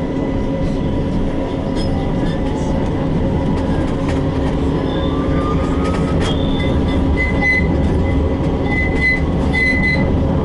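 Tram running, heard on board: a steady rumble with a motor whine rising in pitch, then wheels squealing in several short high bursts from about seven seconds in.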